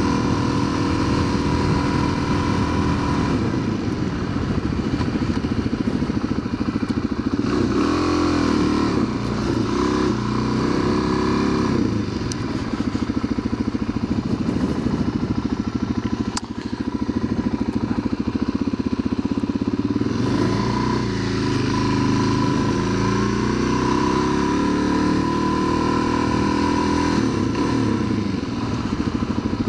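Motorcycle engine running on the move, its pitch rising and falling several times as the bike speeds up and slows down.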